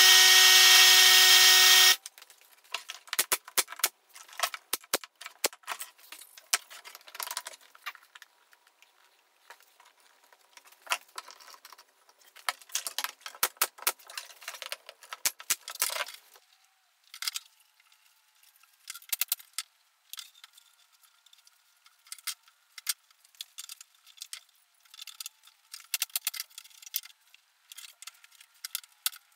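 A power tool runs steadily with an even whine for about two seconds and cuts off abruptly. It is followed by many quick clicks, taps and clatter of tools and wood being handled, coming in irregular clusters.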